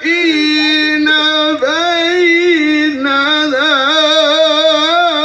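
A man's melodic Quran recitation (tilawah) carried over loudspeakers. It holds two long notes, with a brief break about a second and a half in, then moves into an ornamented line with rapid wavering turns.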